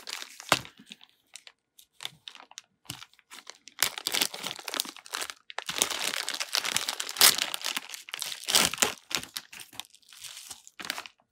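Plastic zip bag and bubble wrap crinkling and rustling as they are handled and opened, in irregular bursts that are sparse at first and busiest from about four seconds in to about nine.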